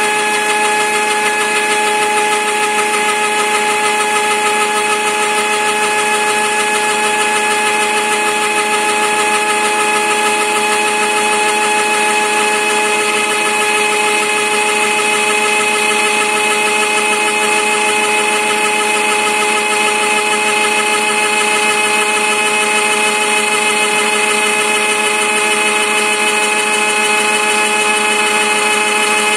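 Spindle of a homemade four-axis CNC machine running with a steady, unchanging whine as a 6 mm two-flute flat end mill cuts a wooden sphere turning on the rotary axis.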